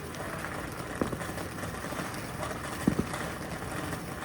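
A small handheld or ground firework fizzing with a steady hiss, with a few soft pops or thumps about a second in and again near three seconds.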